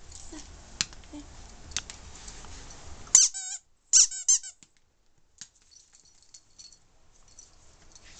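Rubber squeaky toy ball squeaking as a puppy bites down on it: a short run of squeaks about three seconds in, then another quick run of squeaks a second later. A few light taps come before them.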